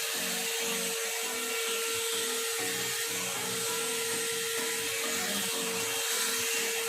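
One-step hair dryer and styler (hot-air brush) running steadily: a constant motor whine over the rush of blown air.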